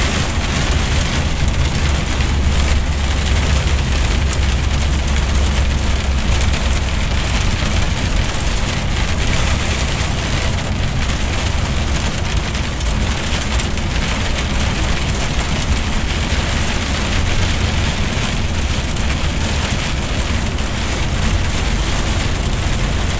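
Sleet and hail hitting the windscreen and cab of a DAF truck, heard inside the cab over the steady drone of the truck's engine and tyres on a slushy road. The low drone is heavier for the first few seconds.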